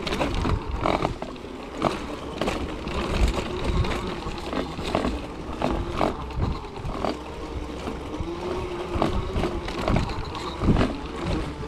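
Electric drive motor of a wheelchair's power front attachment whining under throttle, its pitch rising and falling with speed, over a continuous rumble and frequent knocks and rattles of the frame and wheels on a bumpy dirt trail.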